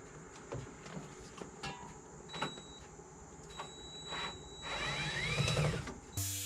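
A small electric motor whirs briefly, rising and then falling, amid scattered clicks and taps. Music starts near the end.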